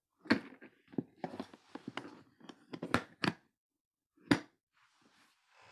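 A Flambeau plastic tackle box being closed: a run of plastic clacks and knocks as the tray folds in and the lid comes down, then one sharp click about four seconds in as the front latch snaps shut.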